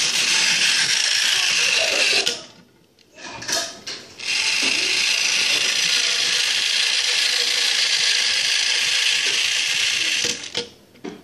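Motorised Thomas the Tank Engine toy locomotive running with its wheels spinning free in the air: a steady whirring of the small motor and gears. It runs for about two seconds, stops with a few clicks, then runs again for about six seconds and cuts off shortly before the end.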